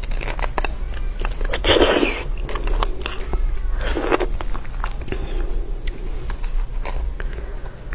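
Close-up mouth eating sounds as marrow is scooped from braised marrow bones: many small wet clicks and smacks, with two louder slurps about two seconds in and about four seconds in, over a steady low hum.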